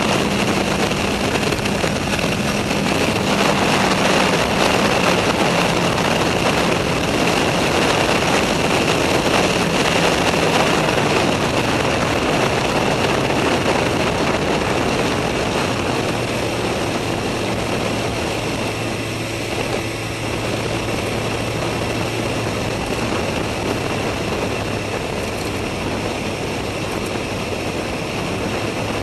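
Suzuki GSX-R 1000 K4's inline-four engine running at road speed under heavy wind rush on the bike-mounted microphone. The engine note slides lower over the first dozen seconds and settles at a steadier, lower pitch, with the sound easing slightly in the second half.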